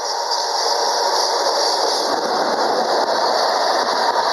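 Freight train passing close by: an FS E.652 electric locomotive goes past, then flat wagons loaded with steel rails roll by, their wheels running over the track. The sound is a steady, continuous rolling noise that grows slightly louder.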